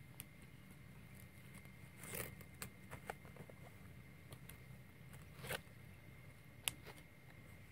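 Faint rustling and crinkling of banana-leaf parcels being handled and set down on a pile of sticks, with scattered small clicks and cracks.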